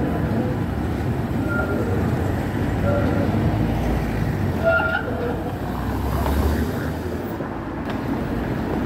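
Articulated tram rolling past on street track: a steady low rumble of wheels on rails and running gear, with a few short, faint high tones, amid city traffic.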